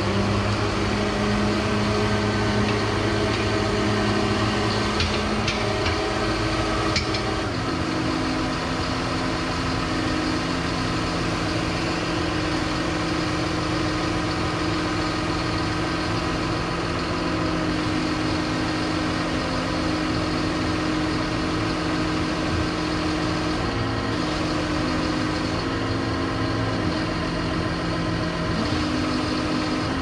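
John Deere tractor's diesel engine running steadily. Its note steps down about seven or eight seconds in and then holds steady, with small shifts near the end.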